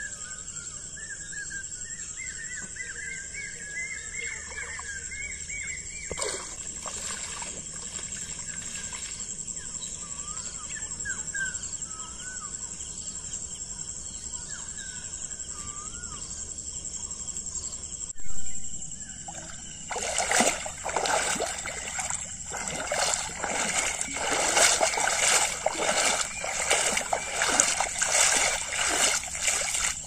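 Shallow water sloshing and splashing in a run of strokes, about one or two a second, through the last third. Birds call earlier on.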